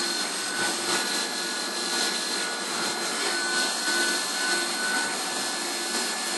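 CNC milling machine running a chamfer tool around the holes of a shock tower plate, with coolant spraying: a steady hiss with a faint high whine from the spindle.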